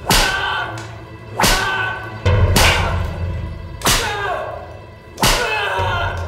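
Whip lashes in a torture scene, six sharp cracks about a second and a half apart, each ringing off. Dramatic music with a low drone plays under them.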